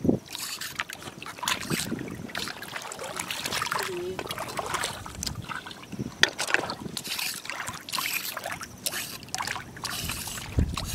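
Shallow seawater splashing and sloshing irregularly as someone wades in rubber boots and dips a hand and tongs into the water, with a sharper splash about six seconds in.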